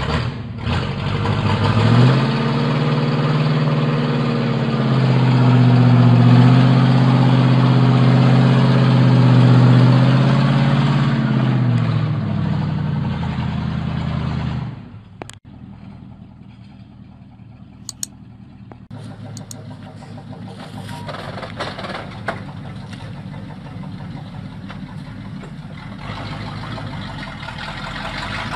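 Heavy truck engine revving hard under load as the truck grinds through deep mud, its pitch climbing about two seconds in, holding, then easing down. Halfway through it cuts off abruptly and gives way to a much quieter truck engine running at low revs, with a few sharp clicks.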